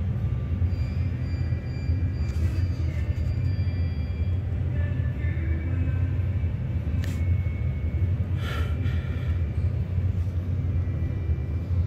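Schindler traction elevator car travelling, a steady low rumble with faint high tones coming and going above it.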